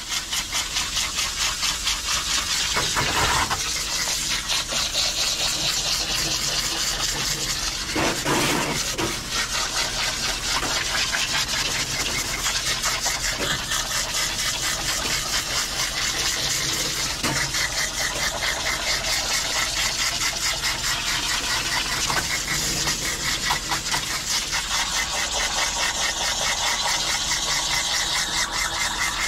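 Water spraying steadily from a bathing hose nozzle pressed into a dog's wet coat in a stainless steel grooming tub, briefly louder twice, about three and eight seconds in.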